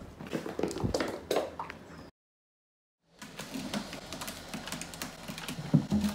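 Scattered light knocks as a cat runs across the room. Then, after a second-long gap of dead silence, a fast run of claws scratching and raking a sisal-rope scratching post, with a thump near the end as the cat climbs.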